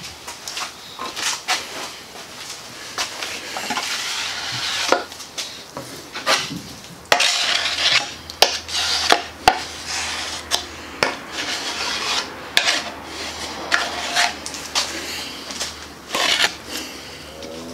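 Plastic spreader scraping and clacking against a mixing board loaded with TotalFair epoxy fairing compound: a run of short scrapes with sharp clicks.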